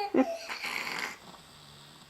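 A sleeping person snoring: a short loud snort, then about a second of raspy breath, then a faint low steady drone.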